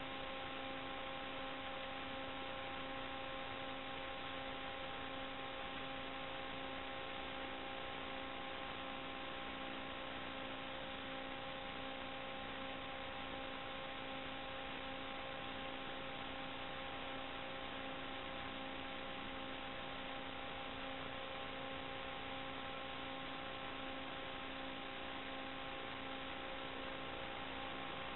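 Steady electrical hum with hiss: a buzz with evenly spaced overtones that never changes pitch, the noise picked up on the audio line of an analog FPV video receiver and DVR rather than any sound of the quadcopter's motors.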